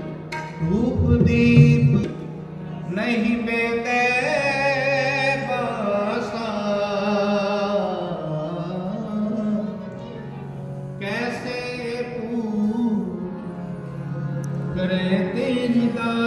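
Sikh kirtan: a voice sings a devotional hymn over sustained instrumental accompaniment, in long held notes that waver in pitch.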